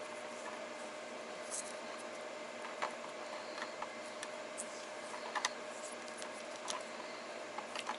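Vinyl electrical tape being unwound and wrapped around a spliced power cord: scattered small clicks and a few brief faint crackles of handling, over a steady faint hum.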